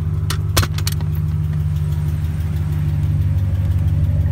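Dodge Ram 1500's Hemi V8 idling steadily, with a few sharp metallic clicks and a clatter about half a second in as a jack is taken off the brake pedal.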